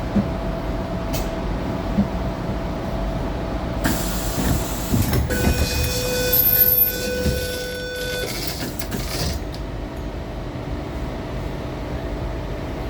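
Tangara electric train standing with a steady low rumble and hum; about four seconds in a loud hissing rush rises and runs for some five seconds, with a steady pitched tone sounding through its middle.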